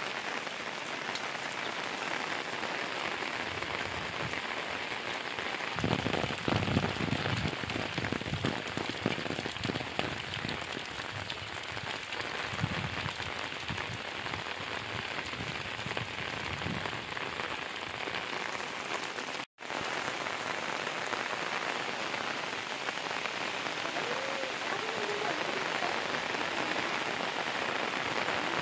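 Steady rain falling on the surface. Through the middle come low rustles and knocks as straw bundles are pulled from a stack, and the sound drops out for an instant about two-thirds of the way through.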